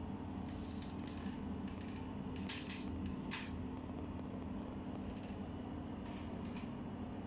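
Tabby house cat purring steadily, with three sharp light clicks close together a little under halfway through.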